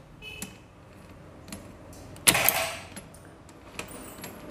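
Small metal engine parts and hand tools clinking, with one louder metallic clatter a little past two seconds in.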